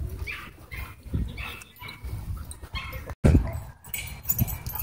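Dogs playing and giving short whimpers and yips, over a low rumble of wind and handling on the microphone. Just after three seconds in there is a brief gap, then a loud thump.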